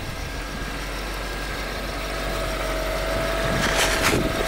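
A 2006 Honda CR-V's K24 four-cylinder engine idling steadily, cold, just after a cold start in deep snow. A few short scraping rustles come near the end.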